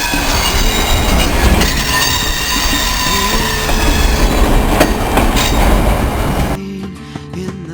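A train rolling by, with a heavy rumble and steady high-pitched wheel squeal. About six and a half seconds in, the train sound cuts off abruptly and music takes over.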